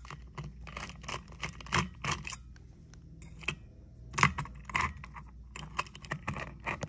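Irregular metallic clicks and rattles as a cordless drill-driver with a Phillips bit backs two small screws out of the socket inside a metal ceiling-fan light fixture kit.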